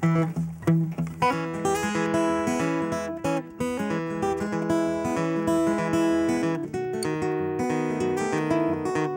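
Steel-string acoustic guitar strummed in a steady rhythm: the instrumental intro of a folk song, before the vocals come in.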